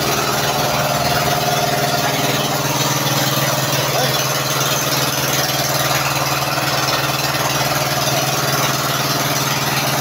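An engine idling steadily, an unchanging low drone.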